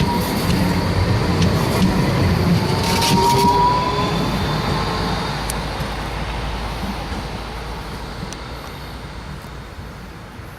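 A Frankfurt R-type tram running past and pulling away. A faint wheel squeal rises slightly in pitch about three seconds in, and the rolling sound then fades steadily.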